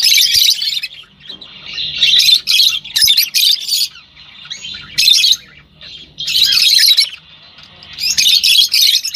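Small ornamental bird chirping in loud bursts of rapid, harsh chirps, a phrase every second or so with short gaps between.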